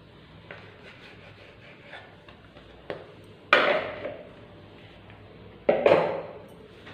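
A knife tapping lightly on a wooden cutting board as dough is cut into portions. Then come two loud clattering knocks about two seconds apart, the first as the knife is dropped into a plastic bowl.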